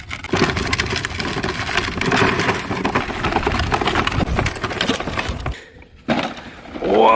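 Wheels of a pedal ride-on toy backhoe rolling over rough dirt, a dense crunching crackle that stops about five and a half seconds in.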